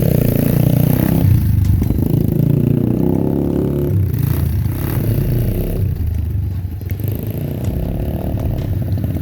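An engine running, its pitch shifting up and down every few seconds, with some scraping and clatter.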